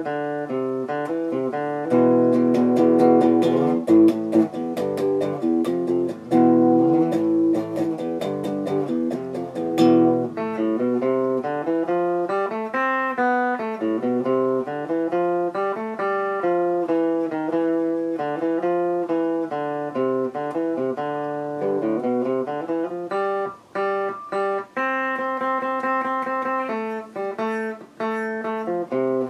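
Solo Gibson Les Paul Custom electric guitar played with picked single notes and chords, strummed harder from about two to ten seconds in.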